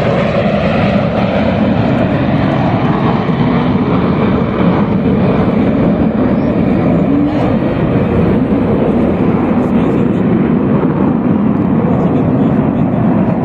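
Loud, steady jet engine noise from a formation of T-50B jets flying an aerobatic display overhead.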